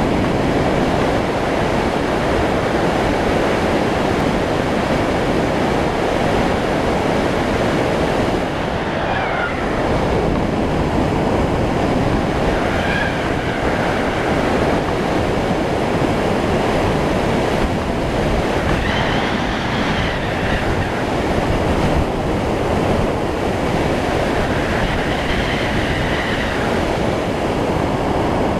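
Steady, loud rush of wind buffeting the microphone of a camera mounted on a hang glider in flight.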